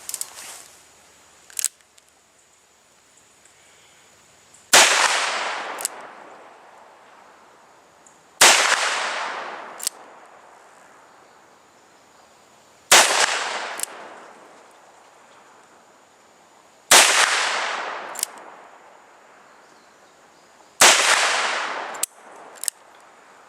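Ruger Super Blackhawk .44 Magnum single-action revolver fired five times, one shot every four seconds or so, each a loud report that echoes away over a second or two. A fainter sharp crack follows about a second after each shot. The loads are Hornady 225-grain FTX Lever Revolution rounds.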